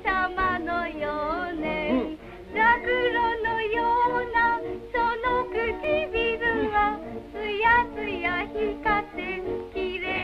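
A woman singing a wavering melody on an old film soundtrack, thin-sounding with nothing above the upper middle range.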